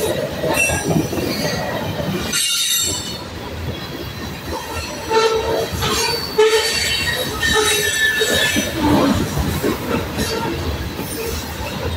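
Freight train of covered hopper cars rolling past at close range, a continuous loud rumble and knocking of wheels on rail. Steel wheels squeal on and off against the rail, most strongly around the middle.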